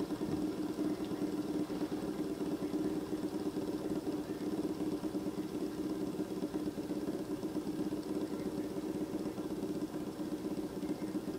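Three-armed fidget spinner spinning flat on a wooden tabletop, its bearing giving a steady buzzing whir.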